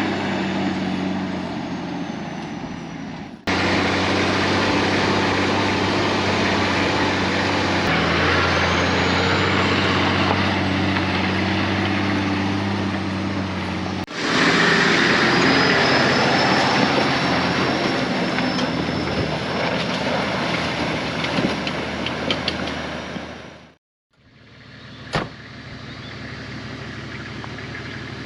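A 4WD's engine and tyre noise while driving on a dirt track, with a steady low engine hum under road rumble. It changes abruptly a few times and drops out briefly about three-quarters of the way in, then runs on more quietly.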